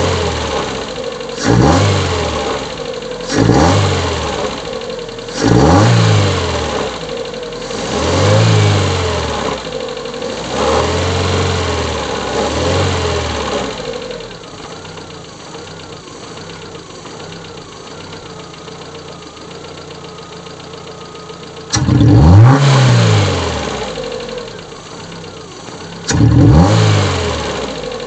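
Fiat Punto mk2's 1.2 16v four-cylinder petrol engine being blipped about six times, each rev rising and falling in pitch, then idling for several seconds before two more sharp revs near the end. The engine has a rough idle.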